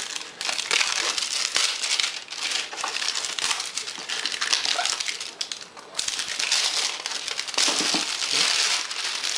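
Clear plastic wrapping crinkling and crackling as it is peeled off a boxed product, a dense run of crackles with a brief lull about six seconds in.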